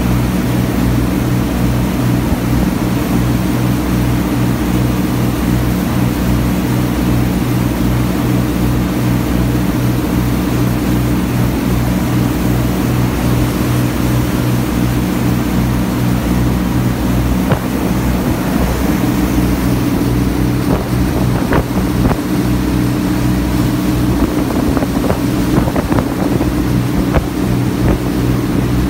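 Passenger ferry's engine running steadily under way, with the rush of water from its wake. A few short knocks come in the second half.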